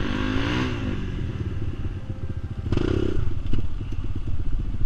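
Kawasaki KLX150S dirt bike's single-cylinder four-stroke engine running at low revs, with a few knocks and a short clatter about three seconds in.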